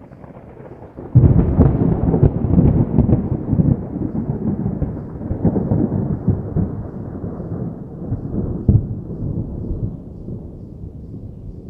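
Distant thunder: a faint low rumble, then about a second in a sudden loud peal that rolls on as a long, crackling rumble and slowly fades.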